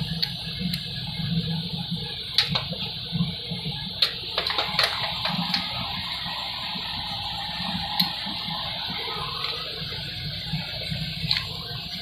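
Scattered sharp metallic clicks and knocks of a wrench working the Torx bolts of a flywheel being fitted to an engine, over a steady rushing background noise.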